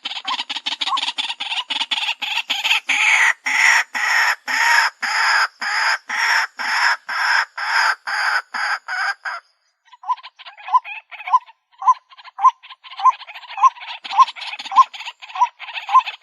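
White-breasted waterhen calling: a long, monotonous series of harsh repeated notes, about three a second at first, then about two a second. The calling breaks off abruptly for about half a second near the middle and then resumes.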